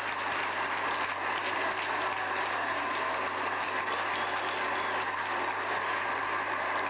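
Audience applauding: a dense, steady clapping from many hands.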